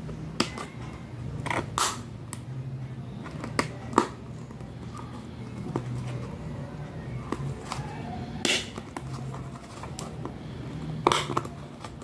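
Sharp plastic clicks and knocks, a few at a time with pauses between, as the small plastic rack of a toy kitchen set is handled and pushed into place. A low hum runs underneath.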